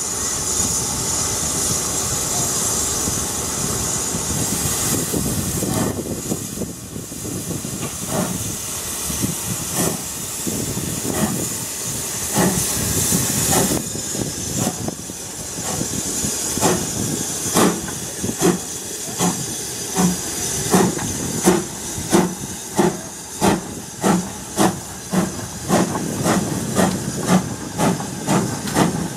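BR Standard 2MT 2-6-0 steam locomotive starting away with its train. It hisses steam at first, then its exhaust chuffs in even beats that quicken to about two a second as it gathers speed.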